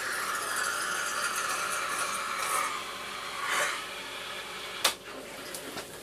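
Boat's electric bilge pump running and pumping out water that has drained into the bilge, a steady rushing noise that fades out about three seconds in. A single sharp click follows near the end.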